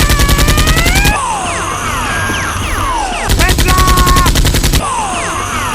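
Two long bursts of rapid automatic gunfire, one at the start and one in the middle, with falling whistle-like tones between them.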